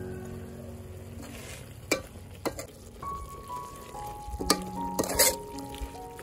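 Metal ladle stirring beef in a steel pot, clinking against the pot several times and scraping through the sizzling meat, with a burst of scraping about five seconds in. Soft background music with held notes plays underneath.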